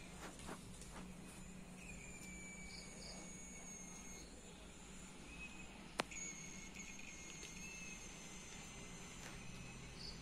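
Quiet room tone with faint, high, thin steady tones and a low hum, broken by one sharp click about six seconds in.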